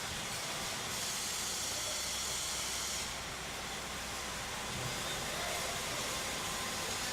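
Electric arc welding: a steady hissing crackle of the welding arc.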